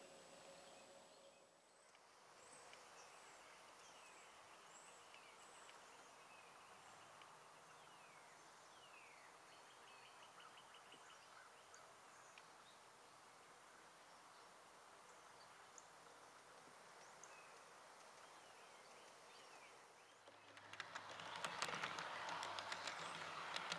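Faint outdoor background with birds chirping now and then. About twenty seconds in, it turns much louder as an AristoCraft G-scale model Budd RDC-3 rail car rolls up close, its wheels clicking and clattering on the track.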